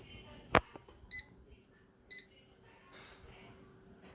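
A sharp click as the air fryer is switched on, then two short electronic beeps about a second apart from its control panel.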